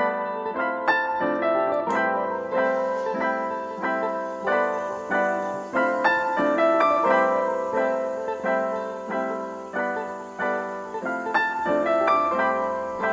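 Background piano music: a continuous melody of single struck notes, a few to the second.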